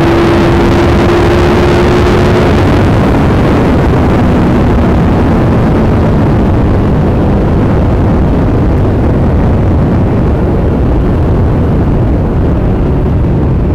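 2022 Triumph Tiger 1200 GT Pro's three-cylinder engine pulling hard near 200 km/h under heavy wind rush on the microphone. The engine note rises slowly for the first two or three seconds, then is mostly buried by the steady rush of wind.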